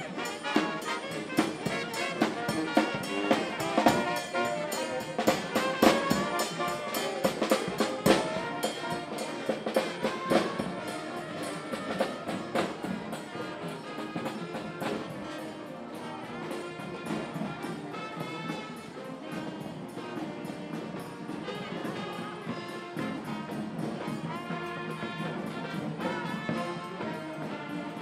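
Street brass band playing horns over a marching drum beat. It is loudest in the first several seconds, drops back somewhat after about ten seconds, and builds a little again near the end.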